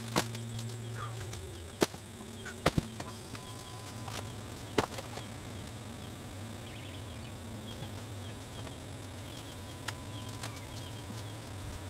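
A few sharp snaps and cracks of twigs and branches being handled and trodden on in fallen tree debris, over a steady low hum.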